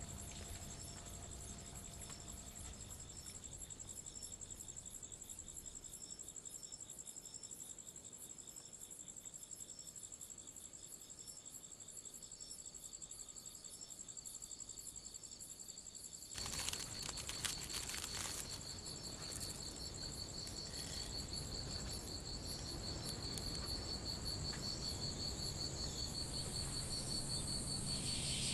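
Crickets chirping in a steady chorus of high, pulsing trills. About sixteen seconds in a few clicks sound and the chorus becomes louder and denser, and near the end a broad hiss rises over it.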